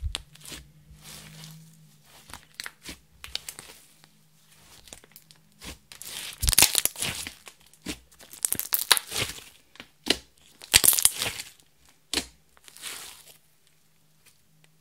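Hands squeezing, poking and stretching a mass of clear slime mixed with makeup and glitter, giving sticky crackles and pops in irregular spells, loudest through the middle and stopping a second or so before the end.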